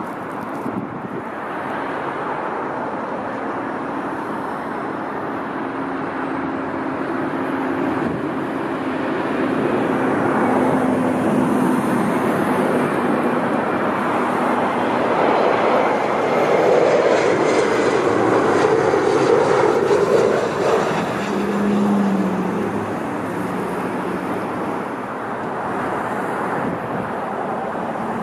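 Jet airliner passing by, its engine noise building to a peak a little over halfway through and then fading.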